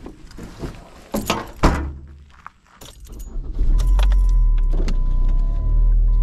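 A car's trunk and door are shut with two loud thuds and keys jangle. About halfway through, the engine starts and idles with a steady low rumble, with a steady electronic tone from the car's dashboard over it.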